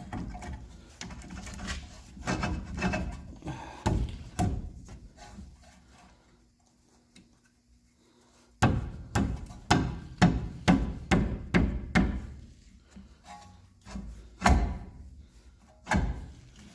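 Front disc brake caliper with new pads being worked onto the rotor: metal scraping and irregular clunks, then, after a short pause, a quick run of knocks and a few more single knocks.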